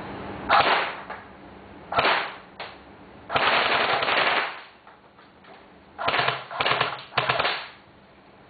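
Airsoft M1 Garand rifle firing in bursts: short ones about half a second and two seconds in, a longer burst of about a second around three and a half seconds, then three short bursts close together near the end.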